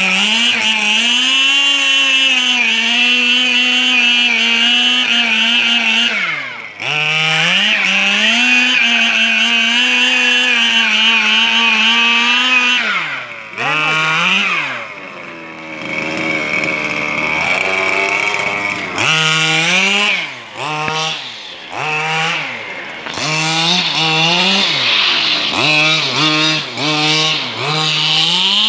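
Small two-stroke engine of a petrol-powered radio-controlled buggy, held at high revs for several seconds at a time, dropping briefly between runs. In the second half it is revved up and down in many short bursts.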